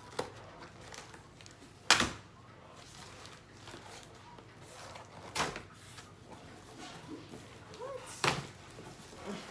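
Cardboard shipping box being opened and handled: three sharp thumps, the loudest about two seconds in, with a fainter knock at the very start.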